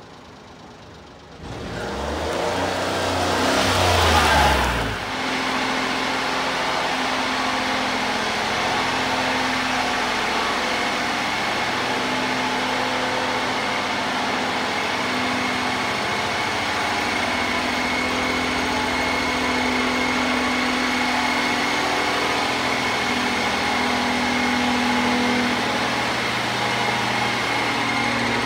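Small three-cylinder engine of a 1996 Honda Acty kei truck idling steadily. In the first few seconds a louder rising surge peaks, then cuts off sharply about five seconds in.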